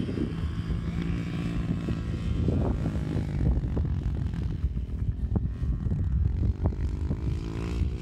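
Dirt bike engine running at fairly steady revs some way off across the track.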